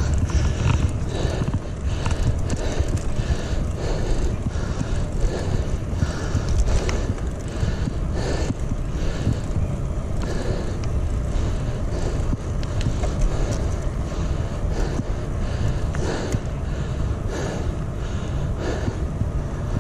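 Wind rumbling over the microphone and the bicycle's tyre and road noise while riding, steady throughout.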